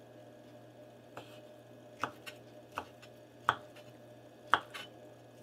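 Kitchen knife cutting through rolled-up ham slices and knocking on a wooden cutting board: about six sharp, irregular taps, the two loudest in the second half.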